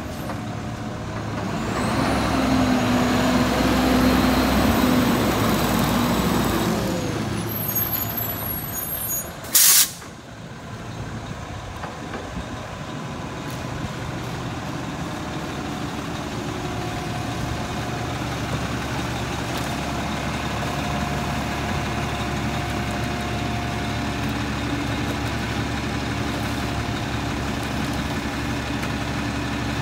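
Front-loader garbage truck with a Kann body pulling up under diesel power, with a high whine that rises, holds and falls away. It stops with a short, loud air-brake hiss about ten seconds in, then idles steadily.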